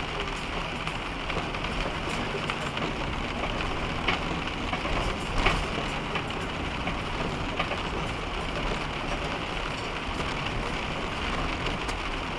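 Inside a truck cab, the steady rumble of the truck driving on an icy road, with freezing rain ticking on the windshield and roof, a few ticks louder than the rest.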